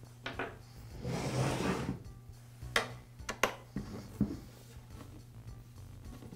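A plastic-bodied Husqvarna chainsaw is turned around and slid on a wooden workbench. There is a scraping rub about a second in, then a few sharp clicks and knocks as it is set down and handled.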